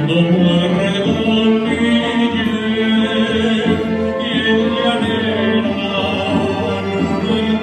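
Live music from a chamber string orchestra of violins, cellos and double bass, playing slow, sustained notes with a steady low held tone.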